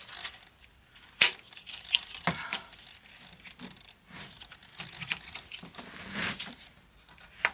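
A clip being worked by hand onto the back of a Cadillac Escalade front seat's frame: irregular small clicks, knocks and rustles of the part against the frame, the loudest click a little over a second in.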